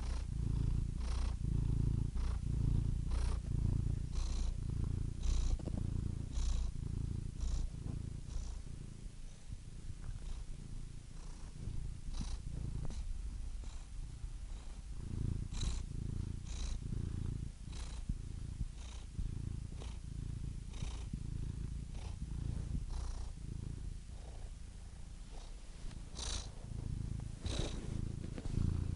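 Domestic cat purring steadily, the purr swelling and easing with each breath about once a second.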